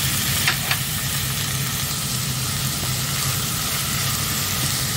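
Beef chunks, onion and garlic sizzling in a stainless steel pot as chopped parsley is stirred in with a wooden spoon, a steady frying hiss over a low hum. Two light knocks come about half a second in.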